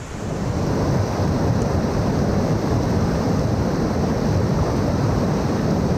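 Wind buffeting the microphone: a loud, steady, irregular low rumble that rises sharply at the start.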